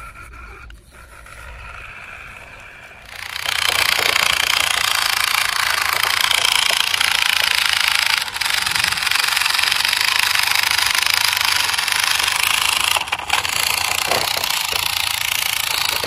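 A loud, steady mechanical rattling noise that starts suddenly about three seconds in and runs on, dipping briefly a few times.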